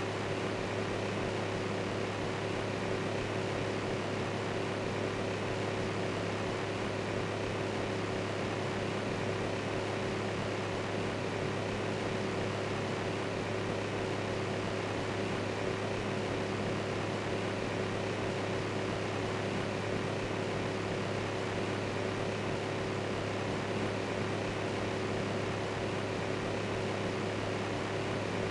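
Electric fan running steadily: an even whooshing hiss with a low hum beneath it and a fainter, higher steady tone.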